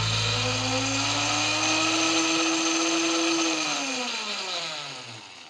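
KitchenAid countertop blender motor running, pureeing a marinade, its pitch climbing slightly as it speeds up. About three and a half seconds in it is switched off and winds down, the whine falling in pitch and fading out.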